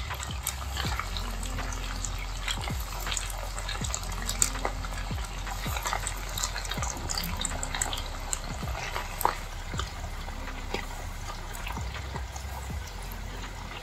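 Breadcrumb-coated chicken pieces deep-frying in hot oil in a kadai: a dense sizzle with many sharp crackles and pops, over a steady low hum.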